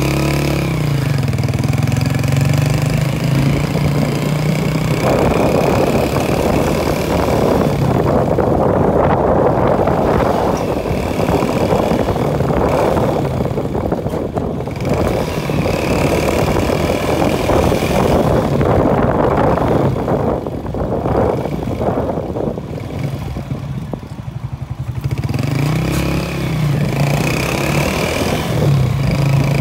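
Motorbike ridden along a sandy road. Its engine note rises and falls near the start and again near the end, and in between a steady rush of wind and road noise covers it.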